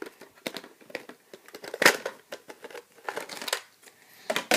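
Plastic and cardboard toy packaging being handled: irregular crinkling, rustling and small clicks as pieces are worked free of the box and its elastic ties, loudest about two seconds in and again near the end.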